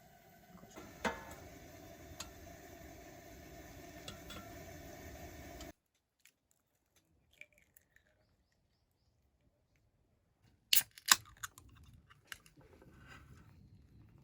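Scattered sharp clicks and light knocks of small objects being handled, over a low background hiss. About six seconds in the background cuts off abruptly to near silence. Two loud clicks come close together near the eleven-second mark, then a few softer ones.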